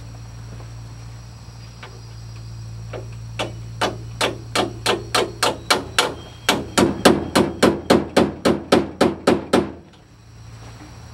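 Hammer blows in a quick run of about two dozen sharp strikes, speeding up from about three to about five a second, then stopping. A steady low hum runs underneath.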